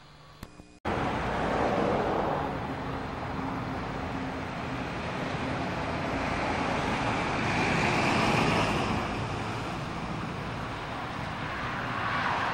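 Street traffic: cars and a lorry driving past, a steady rush of engine and tyre noise that swells and fades as vehicles go by. It starts suddenly a little under a second in, after faint hiss.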